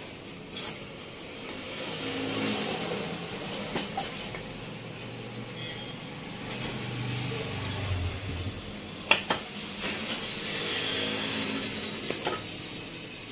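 Steel socket spanner turning and seating the screws in the aluminium crankcase of a Yamaha RX135 engine, screws being tightened down one after another. Metal clinks and scrapes, with several sharp clicks as the socket is moved from screw to screw, the loudest about nine seconds in.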